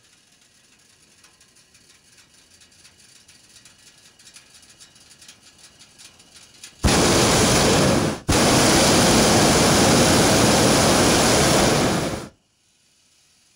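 Hot-air balloon's propane burner firing: a loud steady roar starting about seven seconds in, broken briefly after a second, then running on for about four more seconds before cutting off sharply.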